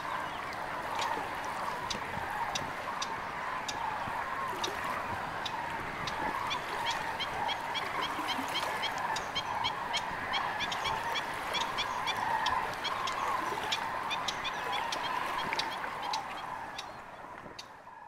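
Dense chorus of a large flock of waterbirds calling across open water: a continuous mass of honking calls with many short, sharp higher calls and chirps over it. It fades out over the last couple of seconds.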